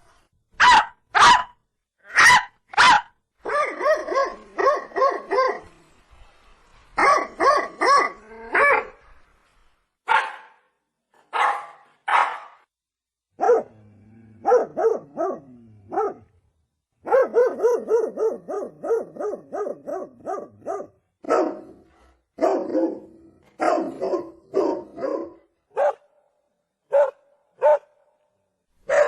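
German Shepherd barking in repeated volleys with short pauses between. Partway through, the barks come in a fast run of about three a second.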